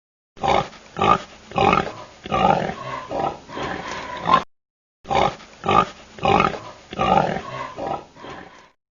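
Recorded animal calls: a run of short, loud calls, about seven in four seconds, then the same run played again after a brief gap.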